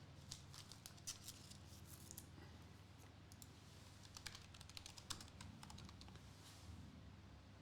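Faint, irregular clicking of keys being typed on a computer keyboard, with a low steady hum underneath.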